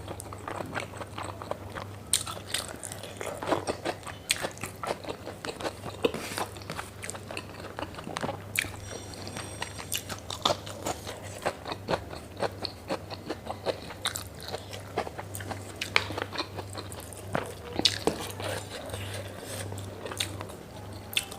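Close-miked chewing and biting of pork and rice, a steady run of wet, sharp mouth clicks and crunches.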